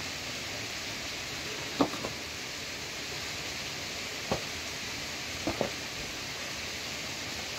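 Steady rushing of a small waterfall, with a few short knocks of a shovel blade digging into dry, stony earth: a sharp one about two seconds in, another near four and a half seconds, and a quick pair around five and a half seconds.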